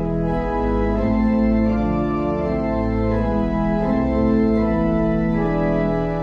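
Church organ playing slow, sustained chords over a held pedal bass, the chords changing about once a second.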